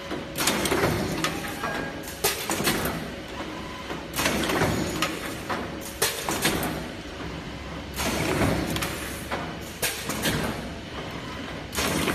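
Non-PVC IV bag making machine running through its cycle: the pneumatic cylinders and film grippers actuate with a burst of clatter and hiss about every two seconds.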